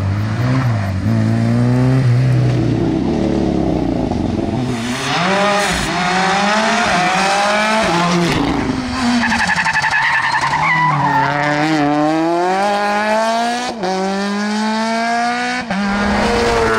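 Rally cars at full throttle, one after another, each engine revving up and dropping in pitch again and again as it shifts through the gears.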